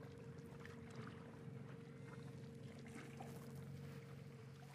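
Boat motor running faintly with a steady hum, under light wind and water noise.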